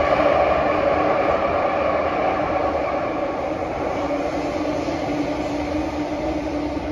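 Cabin running noise of a Kawasaki & CRRC Sifang CT251 metro train in motion: a steady rumble of wheels on rail with a faint hum, slowly easing in loudness.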